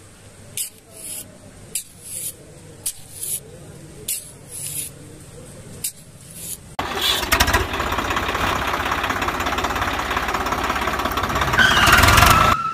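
A string of short hissing bursts, then about seven seconds in a small motor starts suddenly and runs loudly with a fast rattle, its pitch rising near the end before it cuts off.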